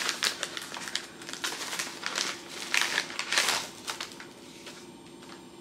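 Brown kraft-paper mailer crinkling and rustling as it is opened by hand and its contents pulled out, in many quick irregular rustles that are busiest in the middle and die down near the end.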